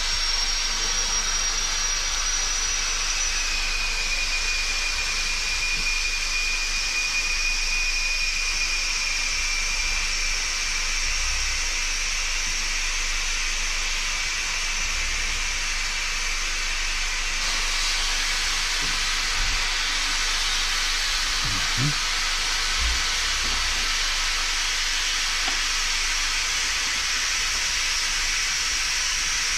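A steady hiss with faint high whistling tones running through it, and a few soft low thumps about two-thirds of the way through.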